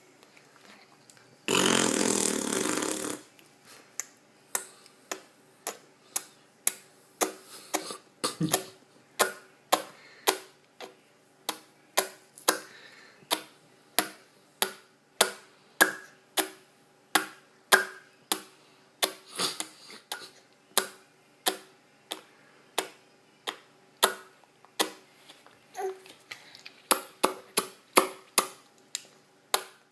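A baby making mouth sounds: a short noisy blow about two seconds in, then a long run of sharp clicks, roughly one or two a second.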